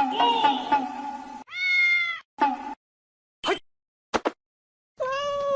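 Cat meow sound effects: a drawn-out meow, a few short clipped bits, and another meow near the end, each cut off into dead silence. At the start, the last second or so of a bouncy tune with a rapidly repeated note.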